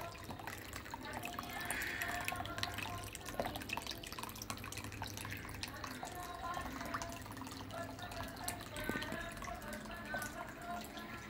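Water trickling and dripping in a small tabletop decorative fountain, a stream of small splashes and drips over artificial rock.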